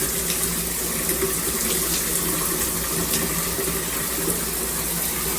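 Water spraying steadily from a Ryamen dual shower head combo, a constant hiss of running shower water.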